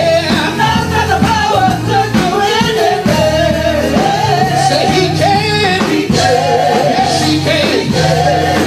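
Live gospel praise song from a church band, with voices singing a bending melody over steady bass notes.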